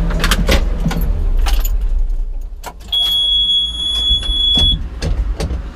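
Excavator engine running steadily, with scattered metallic clicks and knocks. About three seconds in, a steady high-pitched warning beep sounds for just under two seconds.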